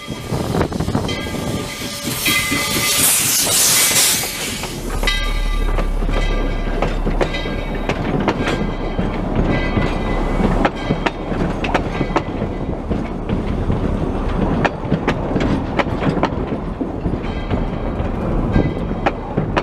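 Steam locomotive passing close by with a loud hiss of steam about two seconds in, followed by its passenger cars rolling slowly past, wheels clicking over the rail joints. High ringing tones come and go through the first half.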